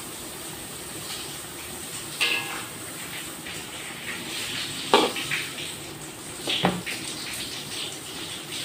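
A metal spoon stirring fish and sauce in a cooking pot, knocking against the pot with three sharp clinks about two, five and six and a half seconds in, over a low steady hiss of the simmering sauce.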